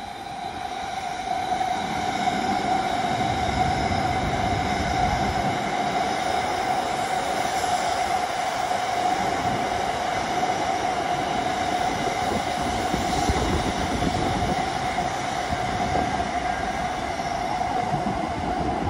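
Electric train running past close by. Its noise builds over the first couple of seconds and then holds steady, with a steady whine running through it.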